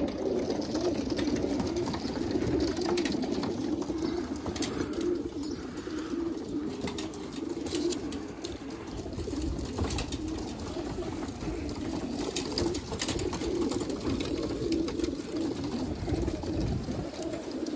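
A flock of young racing pigeons cooing together in their loft: a continuous low, overlapping coo with a few faint clicks scattered through it.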